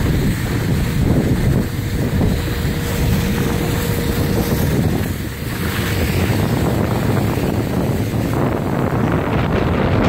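Wind buffeting the microphone of a camera carried by a moving skier, over the rushing scrape of skis sliding on packed snow.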